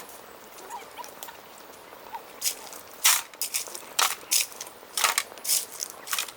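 A run of irregular crunching strokes, beginning about two and a half seconds in and coming roughly two a second.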